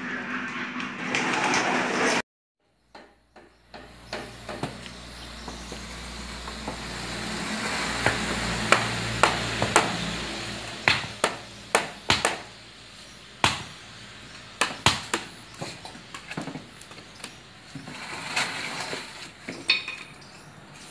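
Hammer blows on timber, a long run of sharp, irregular knocks, with a low steady hum underneath for several seconds.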